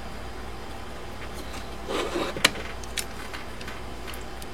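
Metal cover plate of a mortise lock being fitted onto the lock case: a short scrape about two seconds in and a few light clicks, the sharpest just after the scrape.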